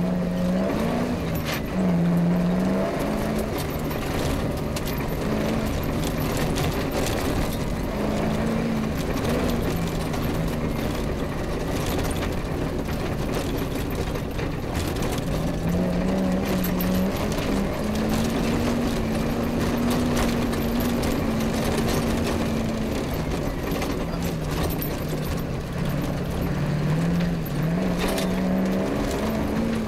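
Off-road rally car engine heard on board at speed over rough tracks, its revs rising and falling and stepping through the gears. Frequent knocks and rattles from the rough ground run underneath.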